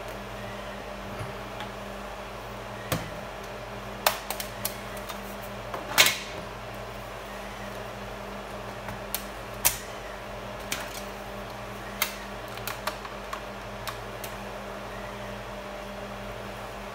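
Scattered plastic clicks and knocks of a laptop being turned over, set down and handled as its battery is fitted, the loudest knock about six seconds in, over a steady low hum.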